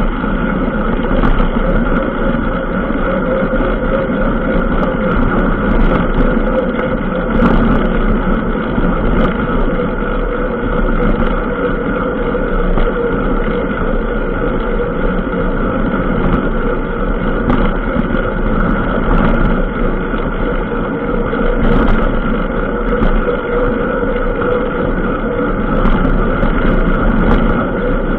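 An engine running steadily at an even pace, heard from on board an off-road vehicle moving along a dirt track.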